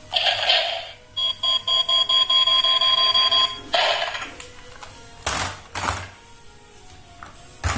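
Battery-powered toy gun's sound chip playing electronic firing effects: a short noisy blast, then a rapid pulsing electronic beep for about two seconds, followed by more short blasts.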